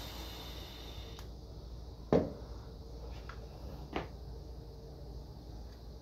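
Hands working on the reglued speaker cube and its clamps: a sharp knock about two seconds in, a second knock about four seconds in, and a few light clicks. A hiss fades out about a second in.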